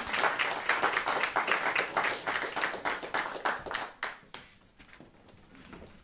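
A small audience applauding at the end of a song, the clapping thinning and dying away from about four seconds in before fading out.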